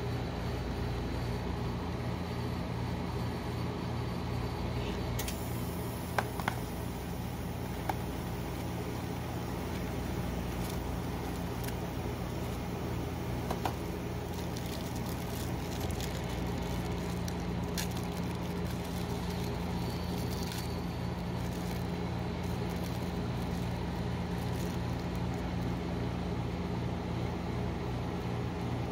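Steady hum of an ice cream roll machine's refrigerated cold plate running. Through the middle stretch a plastic snack wrapper crinkles as a brownie is unwrapped, with a few light taps on the steel plate.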